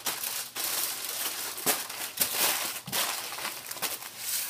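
Aluminium foil crinkling and crumpling as hands fold and press it around a pork shoulder: an uneven run of rustles and sharp crackles.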